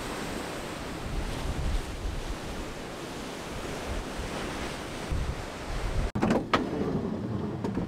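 Rough sea surf breaking on rocks and a harbour wall, with wind buffeting the microphone in a steady low rumble. The sound drops out suddenly for an instant about six seconds in.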